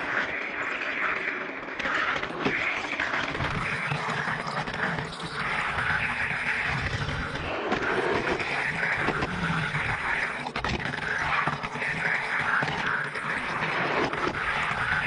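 Toy car's small wheels rolling and rattling along orange plastic toy-car track, a continuous rushing noise that swells and dips every second or two.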